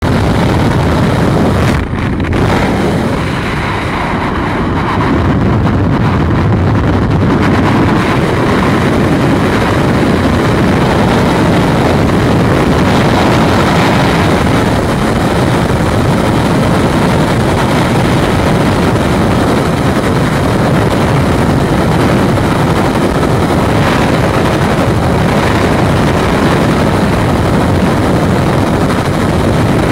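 Propeller engines and slipstream at the open door of a twin-engine jump plane, then, from about two seconds in after the exit, steady loud freefall wind rushing over the camera microphone.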